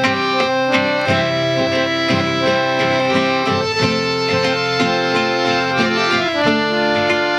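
Harmonium playing the instrumental introduction of a kirtan melody in sustained reedy notes, before the chanting comes in.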